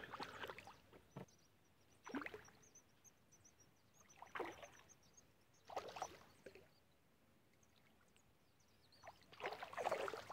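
A hooked boga splashing at the water's surface: short splashes a couple of seconds apart, with a longer bout of splashing near the end as it thrashes close to the bank.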